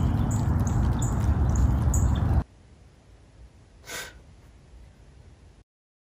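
Wind rumbling on the microphone, with a bird chirping about three times a second; it cuts off abruptly about two and a half seconds in. Then a quiet room, where a man lying on a couch wakes with one short, sharp intake of breath about four seconds in.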